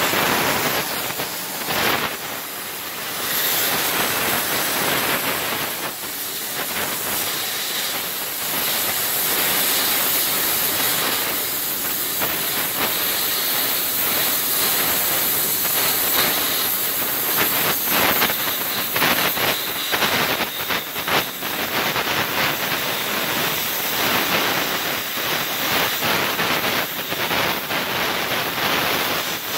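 Welding torch hissing steadily with irregular crackling as steel filler rod is melted onto a small steel part.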